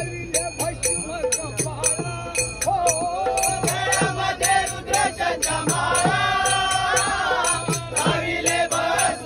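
Group of men singing a Marathi devotional bhajan to Shiva, with brass hand cymbals (taal) clashing in a steady rhythm of about three to four strokes a second and a dholak drum keeping the beat. The singing swells louder from about three seconds in.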